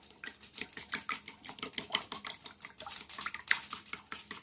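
Eggs and milk being beaten in a bowl with a fork: quick, irregular clicking of the fork against the bowl.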